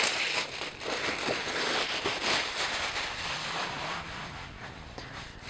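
Thin plastic bag rustling and crinkling as a boxed figure is slid out of it and the bag is crumpled in hand, dying down after about four seconds.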